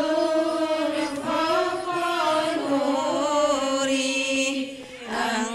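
A group of women chant Islamic devotional verses together in unison, a sustained melodic recitation. It dips briefly in volume near the end.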